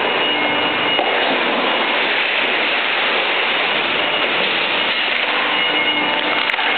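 Industrial plastic baler and its feed conveyor running: a loud, steady mechanical noise with no breaks.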